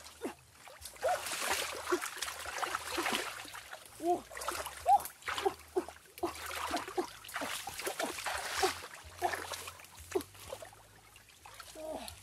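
Hands splashing and sloshing in shallow, muddy stream water, with irregular gurgling plops and short splashes.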